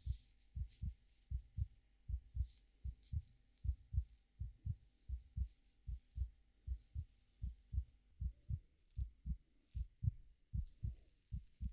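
Steady heartbeat, each beat a low double thump, layered with crisp, irregular rustling of hair being played with close to the microphone.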